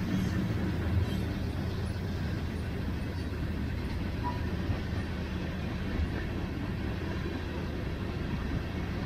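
Freight train's tank cars and covered hoppers rolling past, a steady low rumble of steel wheels on rail.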